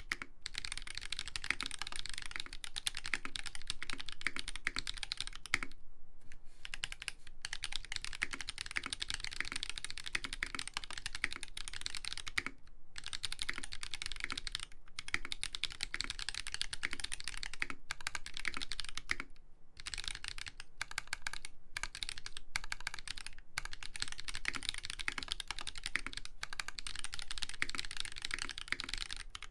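Continuous fast typing on a custom mechanical keyboard with lubed Holy Panda tactile switches on a brass plate and ABS keycaps: a dense stream of keystrokes broken by a few brief pauses.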